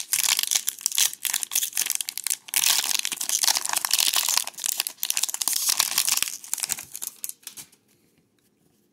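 The plastic wrapper of a Topps baseball card pack being crinkled and torn open by hand, a dense crackling that stops near the end.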